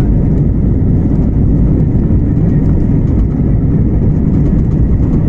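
Steady low rumble of cabin noise inside an Airbus A320-family jet airliner as it moves along the ground at the airport.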